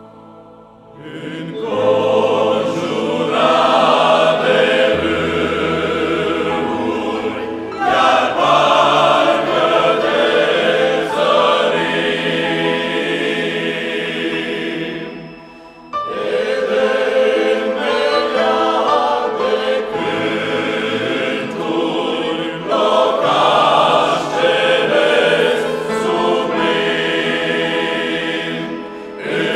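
Male-voice choir singing a Christian hymn in several parts. The singing starts about a second in, breaks off briefly about halfway through between phrases, then carries on.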